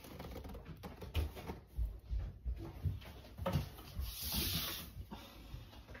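Irregular small clicks, knocks and rubbing of an albino Indian ringneck parrot picking at sunflower seeds in a steel food cup, with a brief rustling hiss about four seconds in.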